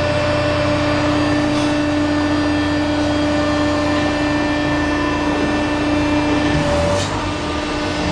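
Concrete pipe making machine running: a steady mechanical drone with a humming tone that stops about seven seconds in, leaving the lower machine rumble.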